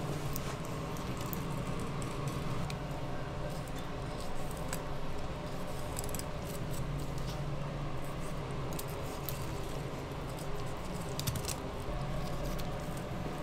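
Kitchen work sounds: scattered light clicks and taps of utensils and dishes over a steady low hum, the taps coming more often near the end.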